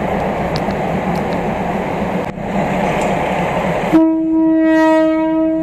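Steady rumble of a train standing in a covered station. About four seconds in, a train horn sounds one long steady note.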